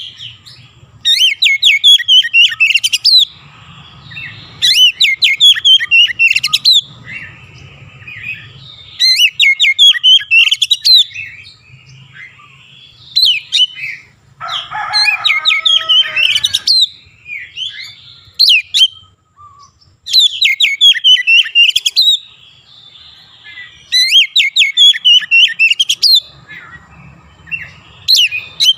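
Oriental magpie-robin singing loud phrases of rapid, sweeping high notes, with short gaps of about two to four seconds between them. About halfway through, one lower, harsher chattering phrase.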